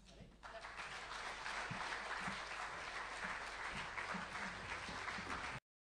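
Audience applauding at the end of a talk. The clapping builds up about half a second in, holds steady, and cuts off abruptly near the end.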